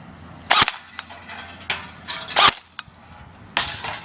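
Metal M4-style airsoft electric gun (AEG) firing single shots on semi-auto: three sharp cracks about a second or more apart, with fainter clicks between them.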